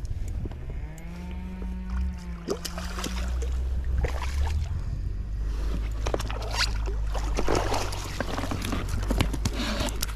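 One drawn-out cow moo starts about half a second in and lasts about three seconds, over wind rumble on the microphone. From about four seconds on comes a run of clicks and water splashes as a rainbow trout is brought in to the pontoon and netted.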